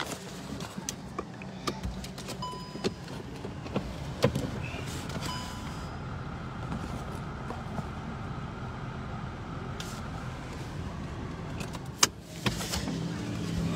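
Steady engine and road hum inside a car's cabin, with a few clicks and knocks from the phone being handled.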